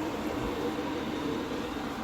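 Diesel air heater running steadily: a constant roar of its blower fan and hot air rushing out of the outlet.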